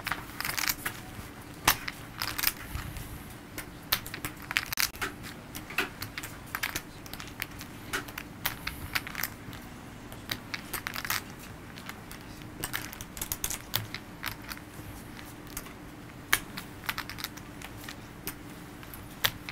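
Clay poker chips clicking together at the table, in irregular clusters of quick clacks as players handle and riffle their stacks.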